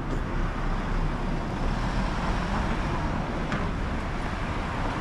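Steady outdoor city street ambience: an even low rumble with a hiss over it, without clear single events.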